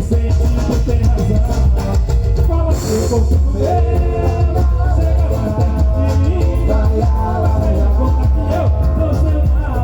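Samba music with a singing voice over a heavy, steady bass, and a brief hiss like a cymbal or shaker about three seconds in.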